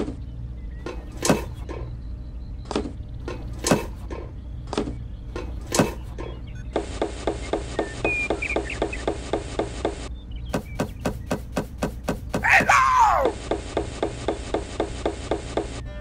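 A string of sharp, irregular knocks and clicks, then a fast, even ticking that stops, gives way to a quick run of clicks and a short falling squeaky tone, and then starts again, over a steady low hum.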